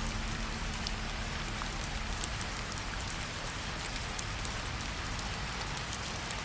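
Steady rain falling: an even hiss with scattered sharp drop ticks. A low held note from the background music fades out about a second in.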